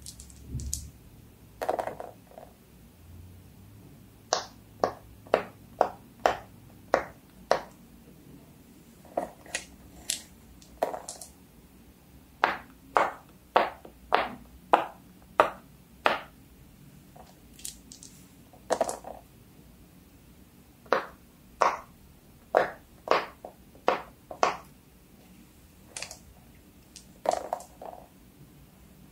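Silicone pop-it fidget toy bubbles being pressed one after another, a run of sharp pops about two a second that stops and starts again several times.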